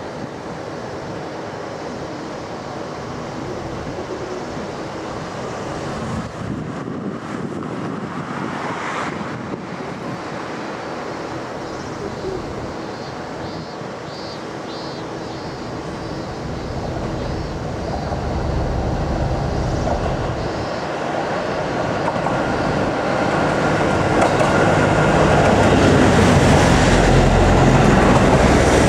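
KiHa 85 series diesel multiple unit approaching from far down the line. Its engines and wheels grow steadily louder over the last dozen seconds and are loudest near the end as the cars come alongside.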